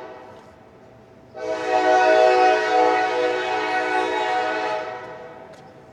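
Freight train locomotive's air horn: a sounding fades out at the start, then a new long blast begins about a second and a half in, holds as one steady chord for a few seconds and fades away.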